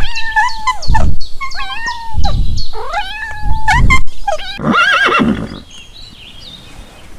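Kittens mewing over and over, many short high-pitched calls that bend in pitch, with low thuds in between. About five seconds in comes a brief wavering call, and then it goes much quieter.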